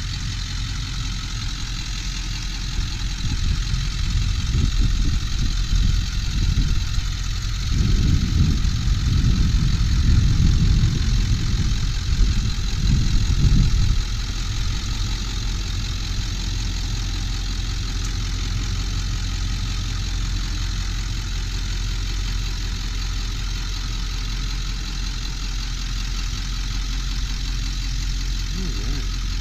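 1999 Ford F-250 Super Duty's 7.3L turbo diesel V8 idling steadily. A louder, uneven low rumble comes in from about four seconds in and cuts off abruptly at about fourteen seconds.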